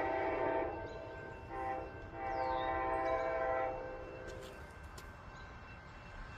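Amtrak P42DC diesel locomotive's multi-chime air horn sounding a grade-crossing pattern. A long blast ends about half a second in, a short toot follows, then a last long blast of about a second and a half stops a little past the middle.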